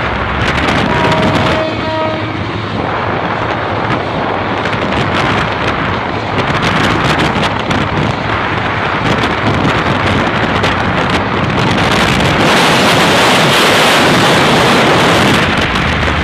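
Heavy wind buffeting on the microphone of a moving motorbike, mixed with road and running noise, while a diesel-hauled train runs alongside. A horn sounds twice briefly about a second in, and the wind grows louder for a few seconds near the end.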